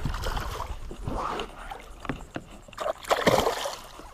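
A hooked fat snook splashing and thrashing at the surface against the side of the boat as it is grabbed by hand, with a louder burst of splashing about three seconds in.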